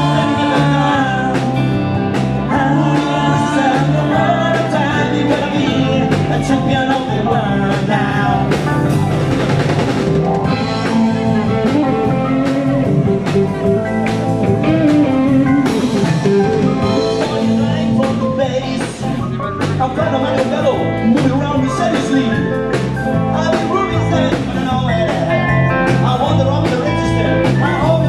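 Live amplified band playing blues-rock: electric guitars, bass guitar and drum kit, with a voice singing.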